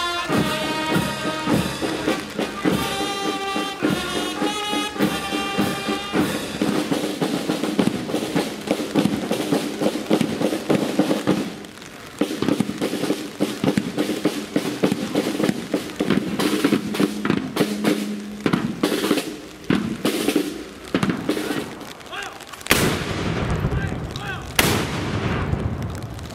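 A marching band plays held notes for the first few seconds, then drums play a long run of rapid snare beats. Near the end come two loud black-powder gun shots about two seconds apart, each followed by a long echoing tail.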